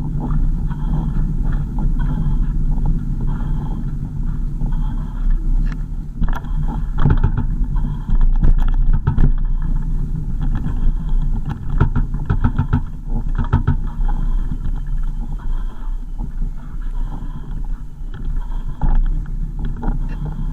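Car interior noise while driving: a steady low rumble of engine and tyres, with scattered knocks and rattles from about six to fourteen seconds in.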